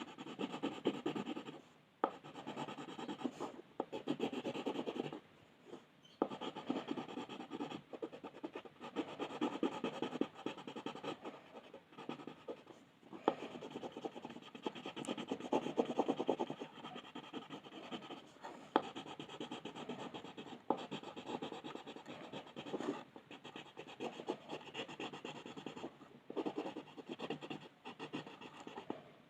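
Coloured pencil scratching on paper in quick, closely spaced back-and-forth shading strokes, with short pauses every few seconds.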